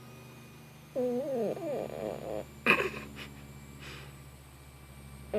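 Sleeping domestic cat making short, wavering mewing vocalizations in its sleep: one about a second in and another beginning at the end, with a brief sharp sound between them.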